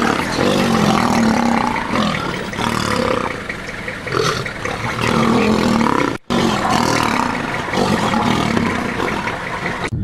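Two male lions fighting, snarling and growling at each other at close range. The sound drops out for a moment about six seconds in.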